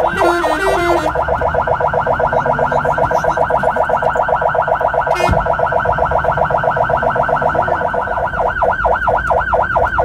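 Fire engine's siren in yelp mode, sweeping rapidly up and down, then slowing to a wider wail about eight seconds in. There is one brief sharp burst about five seconds in, over a low engine rumble.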